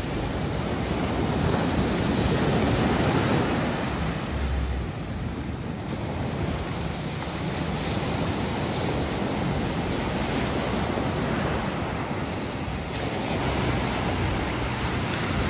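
Ocean surf breaking and washing up a sandy beach in a continuous rush of noise. It swells louder as waves break, about two seconds in and again near the end.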